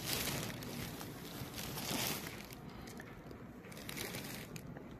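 Folded cotton suit fabric and its clear plastic wrapping rustling and crinkling softly as they are handled, most in the first couple of seconds.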